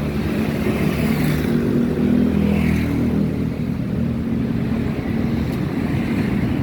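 Honda GX160 single-cylinder engine on a rice thresher, running steadily at a low, even speed, with a slight change in pitch about two to three seconds in.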